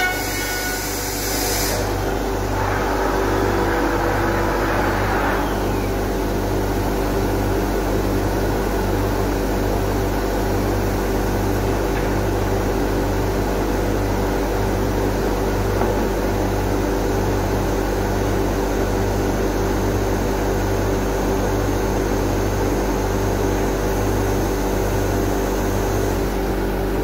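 SCM Tech Z25 CNC overhead router running idle: a steady mechanical hum with a low, even throb about twice a second. In the first few seconds a high hiss cuts off and a faint whine falls away.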